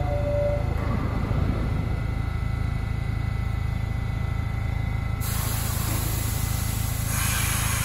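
R68 subway train standing at the platform: a steady low rumble and hum from its equipment. About five seconds in, a sudden hiss of air starts, and it thickens about two seconds later.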